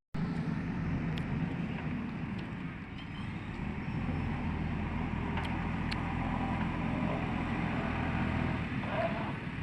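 Heavy diesel engine of earthmoving equipment running steadily, with a few faint clicks.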